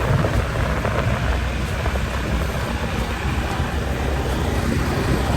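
Steady rush of wind on the microphone and road noise from a moving vehicle, heaviest in the low end, with no breaks.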